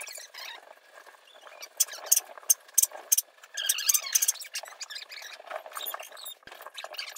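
Coloured pencil scratching on paper in short, quick strokes, with a longer run of scratching about four seconds in.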